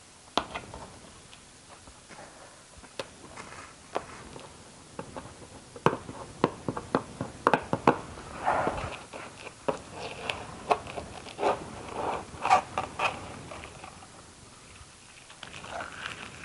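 Hands handling things: irregular clicks and taps with crinkly, rustling scraping, busiest in the middle and dying down, then cardboard rustling near the end as a flap of the shredder's shipping box is handled.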